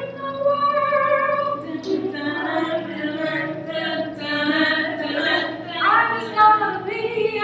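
A small group of women singing a song together, with a long held note at the start and several voices overlapping.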